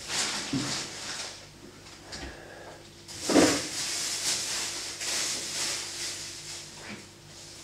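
Rustling and scraping noises with a few soft knocks, the loudest about three and a half seconds in, over a faint steady hum.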